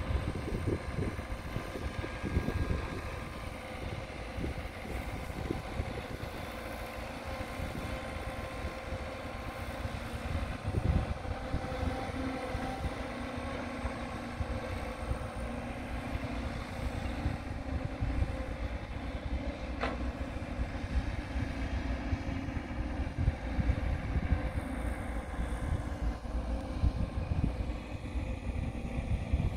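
Diesel engine of a Cat 312 hydraulic excavator running steadily under load while digging and loading a dump truck, a constant engine drone with an irregular low rumble of wind on the microphone.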